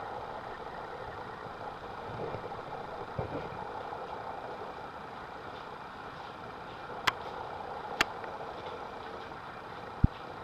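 Homemade propane furnace torch running with a steady hiss of burning gas and air. Two sharp clicks come about a second apart midway, and a short thump near the end.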